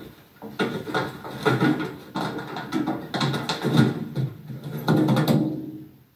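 Someone rummaging through a kitchen, handling and knocking objects in irregular clatters and rustles, heard as played back from a TV. The sounds stop abruptly near the end.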